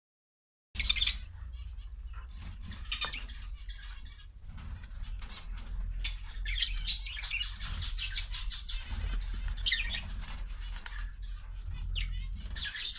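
Quail giving short, high chirping calls every few seconds over a low rumble.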